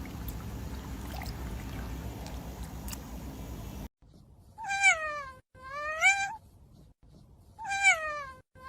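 Steady low background noise, then after a sudden break a cat meowing in two pairs of calls, each pair a falling meow followed by a rising one.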